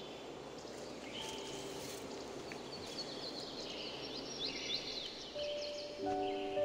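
Garden ambience with small birds chirping in quick high calls through the middle. Soft music with held notes comes in near the end.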